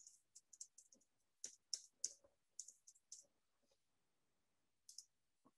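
Faint computer keyboard keystrokes: irregular typing clicks for about three seconds, then a pause and two more clicks near the end.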